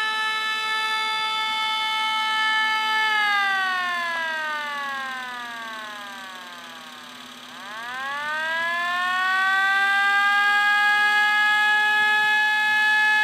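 Fire truck siren wailing on one steady pitch, then winding down in pitch and fading for about four seconds from about three seconds in, before winding back up to full pitch and holding steady.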